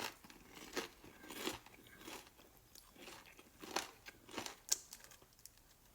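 Close-miked chewing of crispy fried chicken: crisp crunches at an uneven pace, roughly one or two a second.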